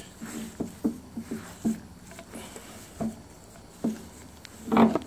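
Grizzly G0602 lathe's 5-inch three-jaw chuck being spun off its threaded spindle nose by hand: a string of short, light clunks of metal on metal, then a louder clunk near the end as it comes free.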